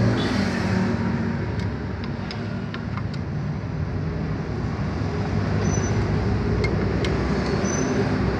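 Steady low rumble of motor vehicles running nearby, with a few light clicks over it.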